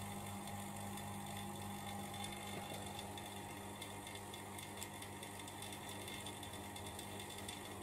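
Steady low hum of a valve vacuum tester's pump drawing vacuum on a valve seat, with a few faint ticks: a leak test of how tightly the valve seals.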